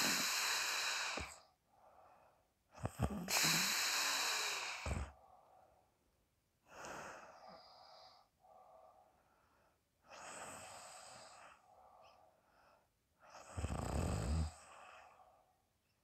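A sleeper snoring: loud, raspy breaths about every three to four seconds, the strongest with a low rattle and the others softer.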